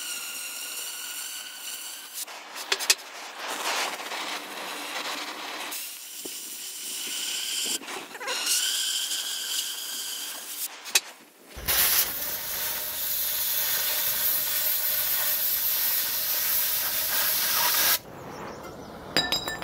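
Oxy-acetylene cutting torch cutting rectangular steel tubing: a steady hissing flame with a whistling tone at times and a few sharp pops. About eleven seconds in, a louder, fuller rushing hiss starts and holds for about six seconds, then drops off suddenly.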